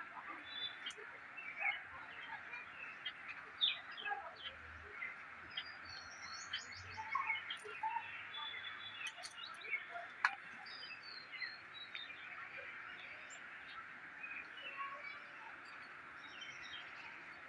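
Birds chirping and calling: many short calls and quick sweeping notes, scattered through, over a steady background hiss.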